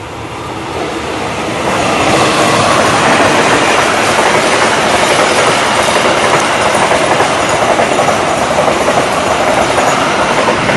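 Loud, steady rushing noise that swells up over the first two seconds and then holds.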